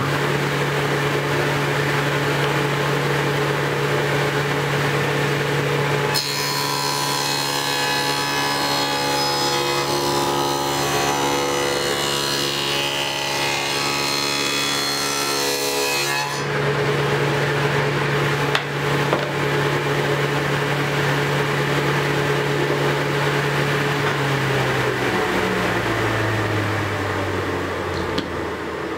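Table saw with a dado blade stack starting up and running steadily. For about ten seconds in the middle it cuts through a wooden board, ploughing a groove along its edge. Near the end the motor winds down with a falling pitch.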